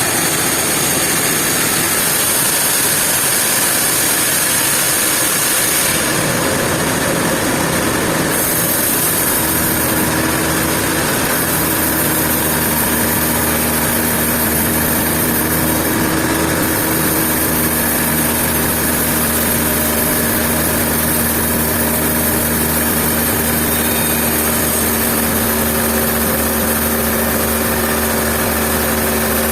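Sawmill machinery running with a steady, engine-like drone; a new, higher hum joins it about nine seconds in.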